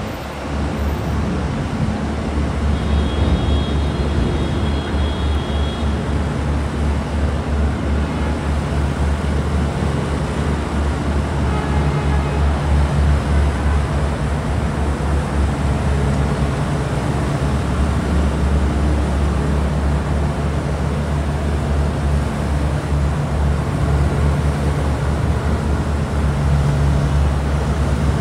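Steady Manhattan street traffic: the engine hum and tyre noise of passing cars and buses, over a deep low rumble. A faint high whine sounds for a few seconds near the start.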